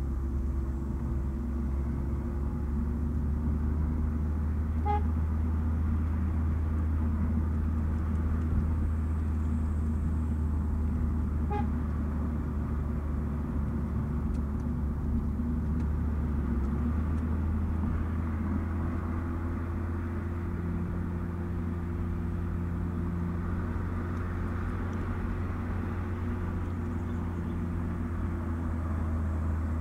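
Nissan Note e-Power car driving, a steady low drone of tyres and drivetrain with a faint hum. The hum shifts pitch slightly about two-thirds of the way through.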